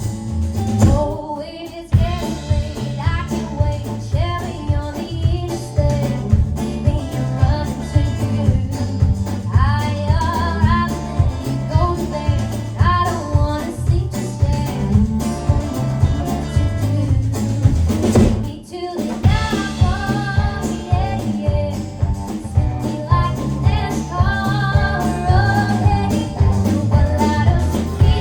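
Live country band playing a song with a steady drum beat, bass and guitar, with a sung or lead melodic line over it; the music drops out briefly about eighteen seconds in.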